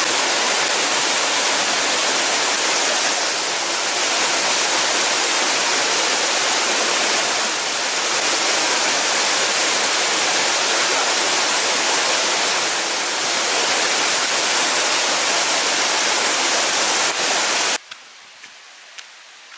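Rushing water of a mountain river, a loud steady noise that cuts off abruptly near the end, leaving a much quieter background with a few faint clicks.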